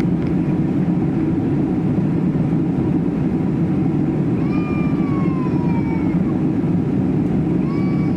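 Steady low cabin roar inside a Boeing 767 airliner in flight, engines and airflow. About halfway through, a thin whining tone slides downward for a second or so, and a shorter one comes near the end.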